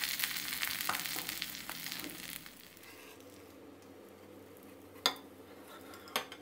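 Mussel omelette sizzling in hot vegetable oil in a frying pan. The sizzle stops about two and a half seconds in. Near the end come two sharp clicks, about a second apart, as the omelette is slid from the pan onto a plate with a metal spatula.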